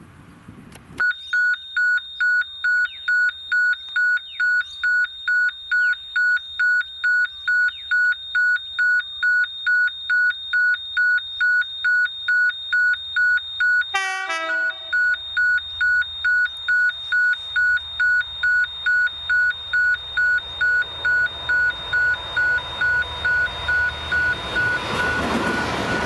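Level crossing warning bell ringing, an electronic tone pulsing about twice a second. Over the last few seconds the rumble and wheel noise of a freight train's diesel locomotives passing close by builds up beneath it.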